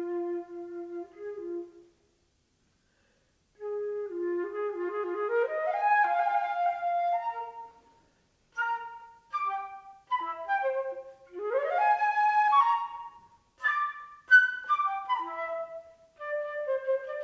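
Solo flute playing a contemporary piece: a low phrase that breaks off about two seconds in, a short silence, then phrases climbing higher, short detached notes and quick upward runs with sharply accented attacks.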